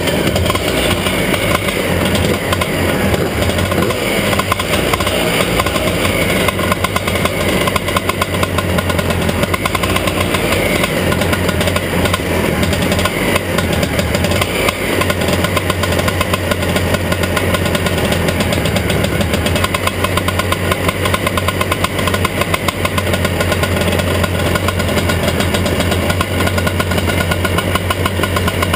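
250cc two-stroke racing kart engines idling on the grid, a loud steady buzz with a few short rises in revs.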